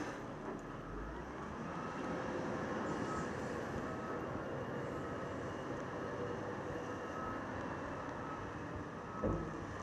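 Steady rushing roar of ocean surf, with a brief low bump about nine seconds in.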